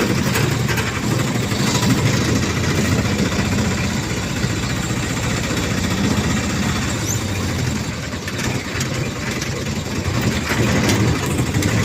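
An engine idling steadily, a low even drone.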